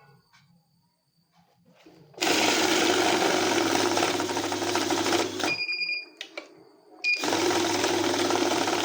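Banknote counting machine whirring as it riffles through a stack of notes. It starts about two seconds in, stops after about three seconds with short high beeps, then starts again near the end.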